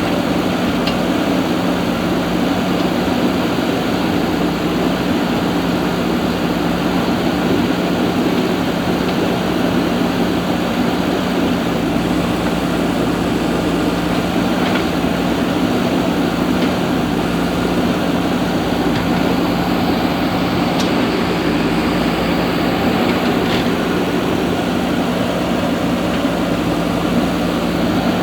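A machine running steadily: an even, unchanging mechanical hum with a constant low tone.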